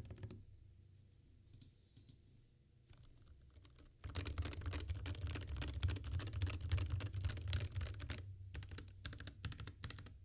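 Typing on an Epomaker HE75 Mag magnetic-switch keyboard with stock switches and stabilisers. A few scattered key presses come first. About four seconds in, a fast, dense run of keystrokes starts and lasts about four seconds, then it slows to separate presses.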